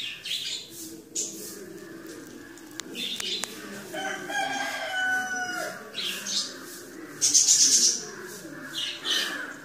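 A rooster crows once, a pitched call of under two seconds starting about four seconds in. Short hissy rustling noises come and go, loudest near the end.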